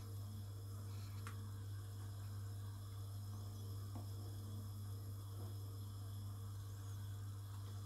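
Steady low electrical hum with a couple of faint clicks, about one and four seconds in.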